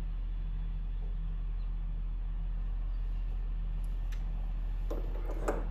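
Steady low hum, with a few light clicks and taps near the end as tooling is handled on a bench press.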